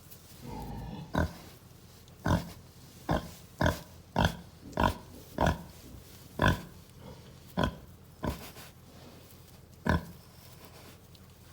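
Farrowing Berkshire sow grunting: about eleven short grunts at uneven spacing of half a second to a second apart.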